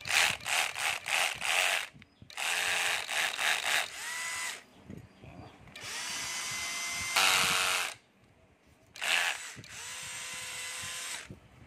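Cordless drill with a 13 mm keyless chuck running free, with no load. First comes a quick series of short bursts, then three longer spins with a steady motor whine, the last at a lower pitch.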